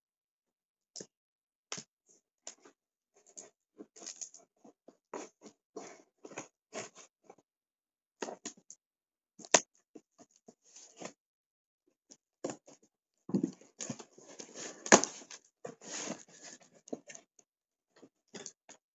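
Rummaging in a cardboard shipping box: irregular scrapes, rustles and light knocks as things inside are handled, with a denser stretch of rustling or tearing about two-thirds through. Two sharp knocks stand out, about halfway and about three-quarters through, the second the loudest.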